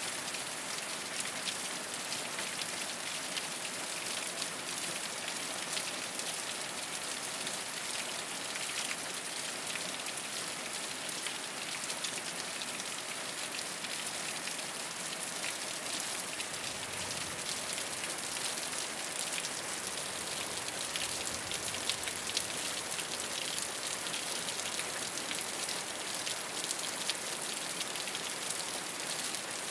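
Steady rain falling on a rooftop, an even hiss full of fine drop patter.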